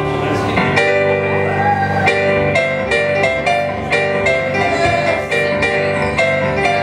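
Piano introduction to a song, with chords struck in a steady rhythm.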